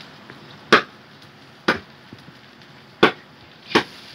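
A bamboo spoon knocking against a wok while stirring: four sharp knocks spread unevenly over about three seconds.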